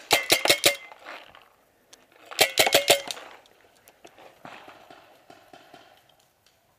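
Paintball marker firing two rapid strings of about five shots each, the second string about two seconds after the first.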